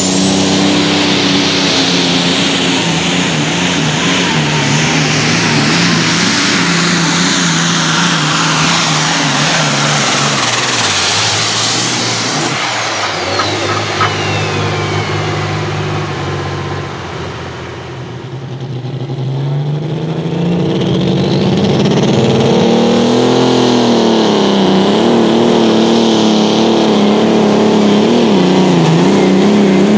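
Turbocharged diesel pulling tractors under full throttle: a loud engine drone with a very high turbo whine that winds up at the start, holds, then winds down about twelve seconds in as the run ends. After a lull, a second tractor revs up, its turbo whine rising again near the end as it starts its pull.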